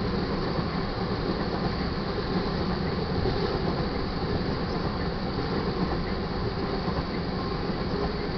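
Freight train of tank cars rolling steadily past a grade crossing: a continuous noise of steel wheels on rail.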